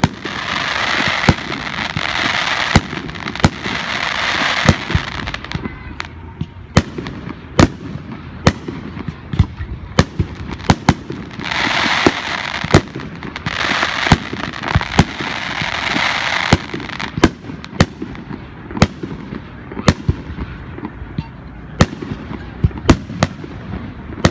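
Aerial fireworks bursting: dozens of sharp bangs in quick succession, at times several a second. Two stretches of dense hissing noise last about five seconds each.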